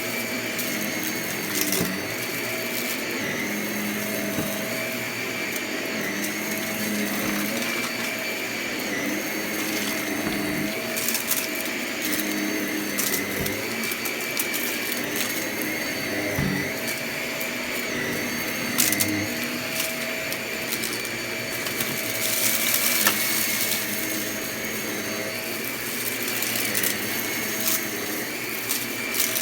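Vacuum cleaner running steadily, its motor pitch dipping and rising every second or two. Scattered sharp clicks and crackles come from crunchy debris being sucked up.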